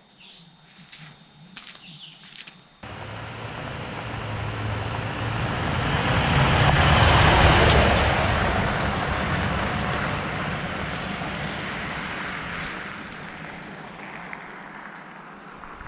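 Faint crickets for the first three seconds. Then a 2008 Chevrolet Silverado 2500 pickup with the Duramax turbo-diesel drives past and away on a gravel road: engine rumble and tyre noise on gravel swell to a peak about seven seconds in, then fade slowly as the truck moves off.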